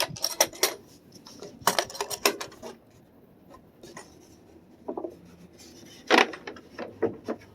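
Sharp clicks and metallic clinks as a Craftsman mechanics tool set's plastic case is handled and its latches opened, the tools inside rattling. Several short clusters of knocks with quieter gaps between.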